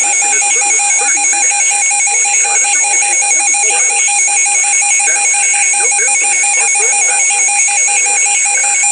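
Emergency Alert System attention signal: a steady, piercing electronic alarm tone with a faint voice beneath it.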